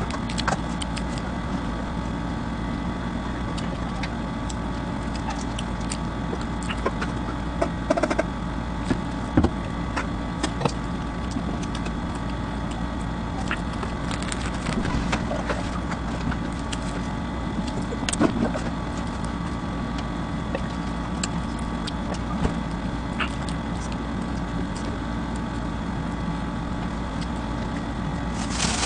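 Flatbread being torn by hand and chewed: scattered soft crackles and clicks over a steady background hum.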